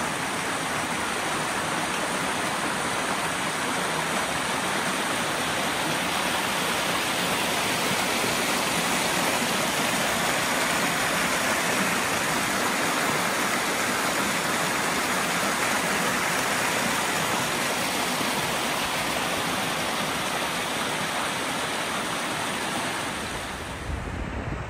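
Steady rush of white water from a mountain waterfall and its stream, loud and unbroken, fading out just before the end.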